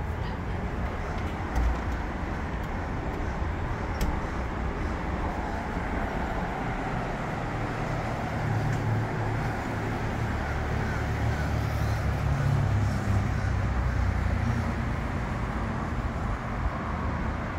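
Steady road traffic noise from a street below, with a deeper rumble swelling for several seconds about halfway through.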